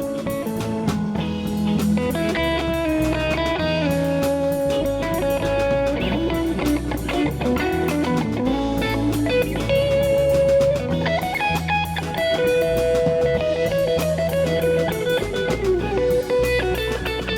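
Band playing an instrumental break: an electric guitar plays a melodic lead line over bass guitar and drums.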